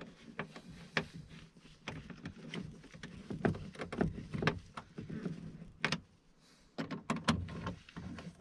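Irregular clicks and knocks of T27 Torx screws and a screwdriver being worked into the electric window motor's mounting on a car door's inner metal panel, with a few sharper knocks, the loudest cluster coming late.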